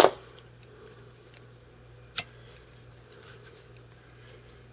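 Fly-tying tools being handled at the vise: a sharp click at the start and another about two seconds in, over a faint steady low hum.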